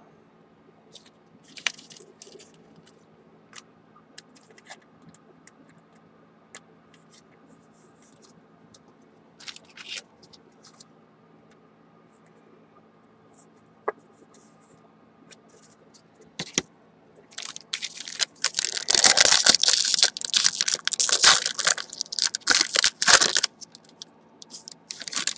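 Scattered faint clicks and taps of cards being handled, then about two-thirds of the way through a loud crackling rip and crinkle lasting some six seconds: a foil-wrapped trading card pack being torn open.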